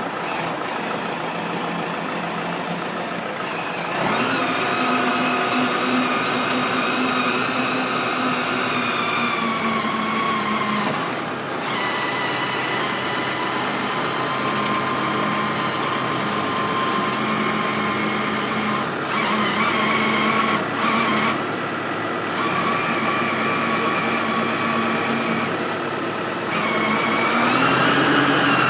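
Tractor engine running steadily to drive a Gafner Roto two-sided spreader, with a steady machine hum and whine over it. The engine speed steps up about four seconds in, dips briefly around eleven seconds, and rises again near the end.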